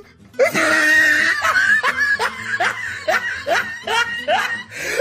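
Laughter: a run of quick ha-ha bursts, about three a second, starting about half a second in.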